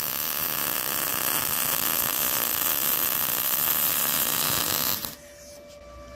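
MIG welding arc from an Arccaptain MIG 200 welder on thin-wall 1/16-inch mild steel square tubing, run slowly so the weld melts in better. A steady sizzle that cuts off abruptly about five seconds in when the trigger is released.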